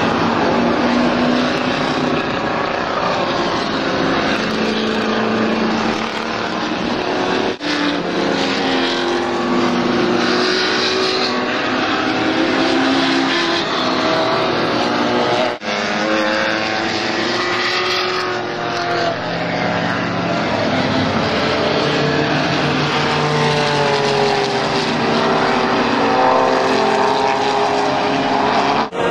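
Several race car engines running hard, their pitches rising and falling as the cars accelerate, shift and brake. The sound drops out briefly twice.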